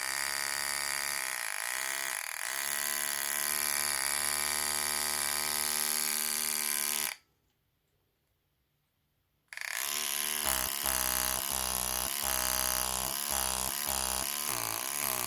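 The NUK electric breast pump's small electric motor driving its diaphragm pump with a steady whine. It cuts out completely for about two seconds midway, then runs again with its pitch dipping briefly over and over as the load on the suction changes.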